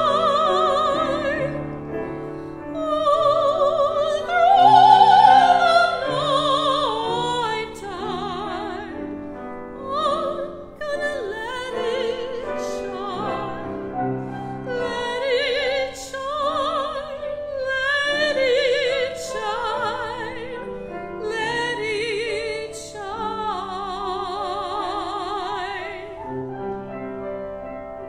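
Classical soprano singing a spiritual with a wide vibrato, in phrases separated by short pauses, over piano accompaniment.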